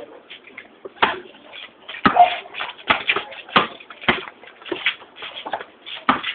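Basketball bouncing on a concrete court: about six hard bounces at uneven intervals, over a background of shuffling feet.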